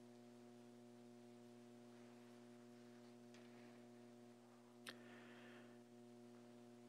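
Near silence: room tone with a steady low hum, and one faint click about five seconds in.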